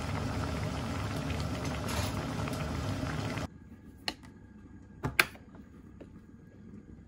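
Braised mackerel and radish bubbling at a steady boil in a pot, stopping abruptly about three and a half seconds in. Then a single click, and about a second later a sharper double click as an electric rice cooker's lid is released and springs open.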